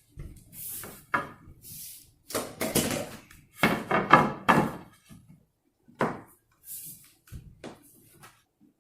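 Irregular wooden knocks, thumps and scraping as a pre-finished maple floorboard is worked and pushed into its gap in the floor.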